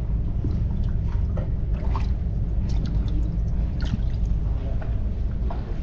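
A hand splashing and sloshing water in a boat's live-bait well: a string of small, irregular splashes and drips over a steady low rumble.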